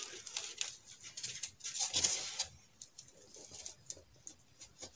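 Hands sliding and pressing a plywood sheet into place on a glued foam panel: light scraping and rubbing with small taps, and a longer scrape about two seconds in.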